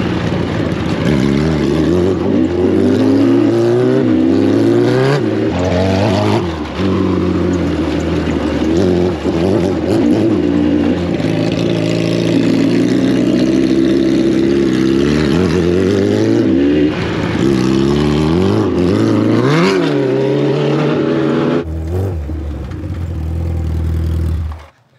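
Motorcycle engines, among them a 2008 Suzuki Hayabusa's inline-four, riding off-road. The engine pitch repeatedly rises and falls as the riders rev and ease off over rough ground. The sound cuts off abruptly just before the end.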